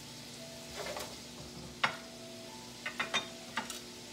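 A spatula stirring vegetables and pork in a frying pan, knocking against the pan several times, loudest about two seconds in, over a faint steady sizzle.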